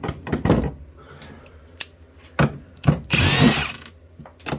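Milwaukee M18 cordless oscillating multi-tool triggered in one short burst of about half a second, about three seconds in, its motor pitch shifting as it runs. Knocks from handling the part come before it.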